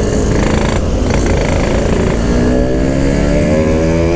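Yamaha RX-King motorcycle's two-stroke engine running under way with wind noise, then pulling up through the revs with a steadily rising pitch from about halfway in.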